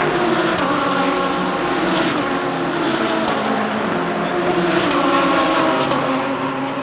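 Engines of several DTM GT3 race cars running at racing speed, their pitch rising and falling as they accelerate and shift through the field.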